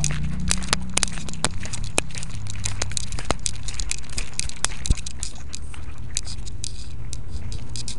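Dense irregular crackling and clicking from a collar-mounted camera's microphone rubbing and knocking against the dog's fur and collar as the dog moves, over a steady low rumble.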